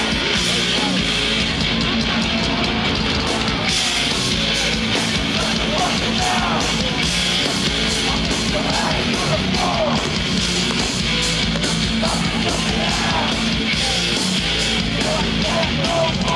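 Live hardcore punk band playing loud and without a break: heavily distorted electric guitars, bass and pounding drums.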